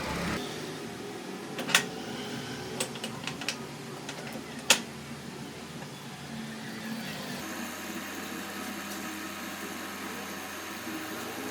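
Sharp knocks and clicks of hand work on a ceiling fan, the two loudest about three seconds apart with a few lighter ticks between, over a steady background hum.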